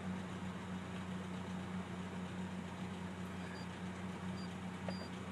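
Car engine idling steadily, heard from inside the cabin as an even low hum.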